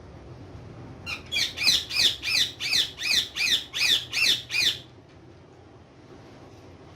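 A parrot screeching in a quick run of about a dozen harsh squawks, roughly three a second, each dropping in pitch. The calls stop abruptly after about four seconds.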